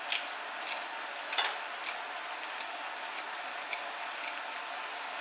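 Vegetables stir-frying in a wok: a steady soft sizzle with small sharp crackles every half second or so.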